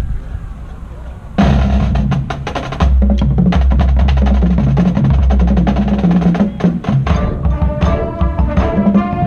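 Marching band coming in suddenly about a second and a half in, percussion-led: rapid sharp drum strikes over deep low drum beats. Pitched instrument lines join from about seven seconds in.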